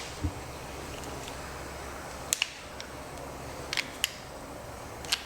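Click-type torque wrench giving several sharp clicks in the second half, each click the wrench reaching its set torque of 12 foot-pounds on the cylinder head's rocker fasteners.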